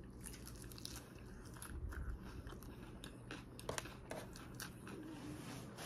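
A person chewing a mouthful of spring-mix salad greens with the mouth near the mic: quiet crunching and many small wet mouth clicks.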